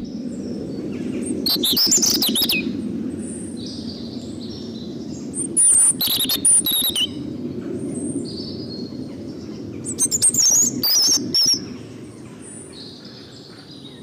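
European robin singing: high, warbling phrases separated by pauses of a few seconds, over a steady low background rumble.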